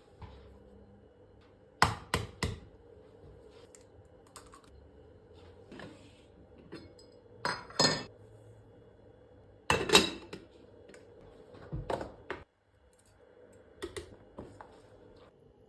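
Kitchen items knocking and clicking as they are handled on a counter, in about five short clusters of sharp knocks; the loudest comes about ten seconds in.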